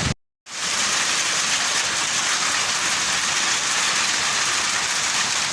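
Heavy storm rain falling, a steady even hiss, after a brief dropout to silence just at the start.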